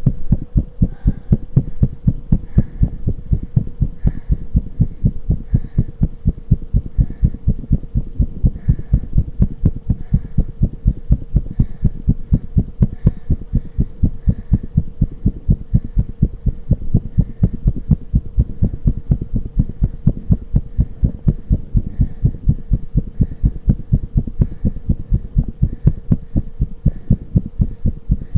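A human heart beating hard and fast, heard close up: a quick, even run of deep lub-dub thumps, with a steady hum underneath.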